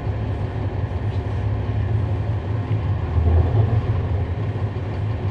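Cummins ISL9 diesel engine of a 2011 NABI 40-SFW transit bus, heard from inside the bus as a steady low drone. It swells louder for about a second around three seconds in.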